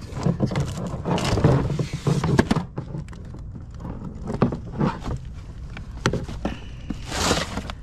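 Items in a curbside junk pile being moved by hand: a couple of seconds of scraping and rustling, then scattered sharp knocks and a short scrape near the end.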